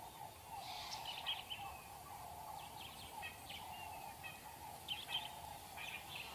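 Faint bush ambience: scattered short bird chirps and calls over a steady, faint drone.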